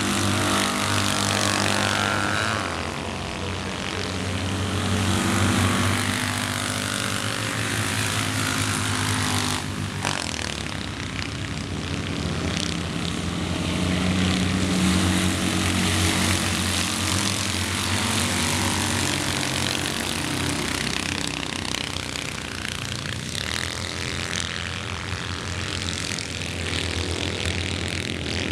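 A pack of Citroën 2CV Cross race cars running hard on a dirt track, their small air-cooled flat-twin engines revving with the pitch rising and falling as drivers lift and accelerate. The sound swells about five seconds in and again halfway through.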